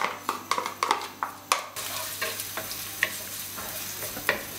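A wooden spatula knocks quickly several times as chopped onion and garlic are scraped into a wok. About two seconds in, a steady sizzle of the onion frying in hot oil starts, with a few scrapes and knocks as the spatula stirs.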